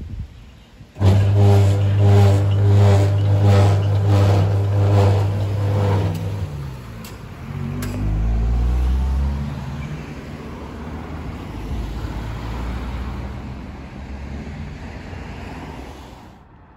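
Rail locomotive passing close by, its engine working hard under a steady low hum with about two exhaust beats a second, then easing off and fading, with a couple of sharp clicks and a low rumble partway through.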